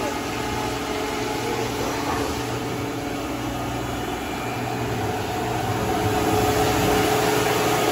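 Liebherr LC 502 CNC gear hobber cutting a gear: a steady mechanical hum with several steady whining tones, growing a little louder about two-thirds of the way through.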